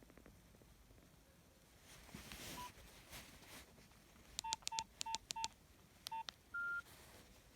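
Nokia 3120 mobile phone keypad beeps: four short beeps in quick succession about halfway through, then one more beep and a slightly higher, longer tone near the end, as keys are pressed. A faint handling rustle comes before them.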